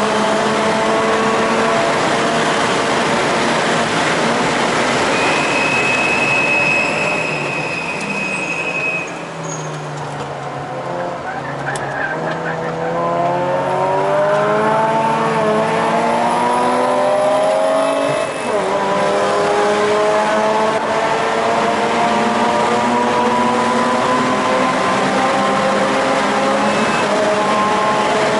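Mazda RX-8's rotary engine heard from inside the cabin at full throttle on a race track. It runs at high revs, then the revs fall away under braking about eight seconds in. They climb again with a gear change at about eighteen seconds and stay high afterwards. A brief high squeal comes at about five to seven seconds in.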